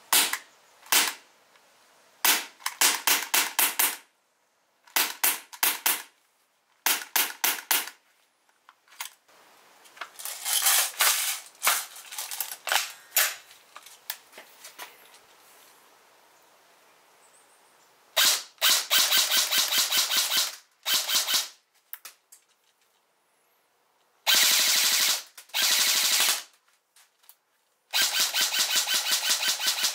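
Airsoft guns being test-fired. A handgun fires single shots and short quick strings in the first eight seconds. Then a G&G Combat Machine electric airsoft rifle fires several full-auto bursts of two to three seconds each, each a rapid run of shots, with pauses between.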